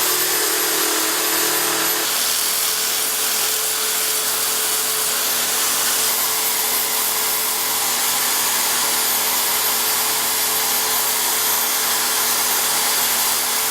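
Wood lathe running steadily with a purpleheart handle blank being worked on it, a steady machine noise with a hum. A lower part of the hum drops out about two seconds in.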